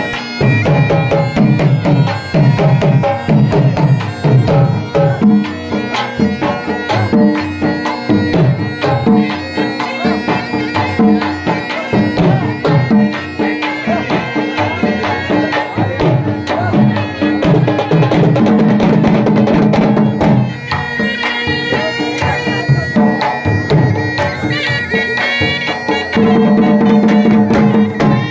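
Saraiki folk music for the jhumar dance: a drum beat under a held, droning melody.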